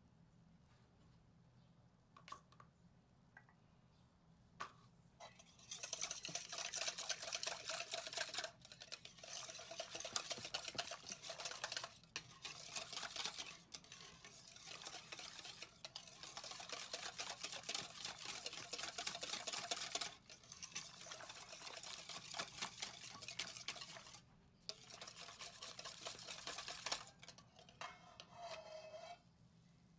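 Electric hand mixer beating in a bowl, running in several stretches with short pauses, its motor winding down in pitch as it stops near the end. A few light clicks of kitchenware come before it.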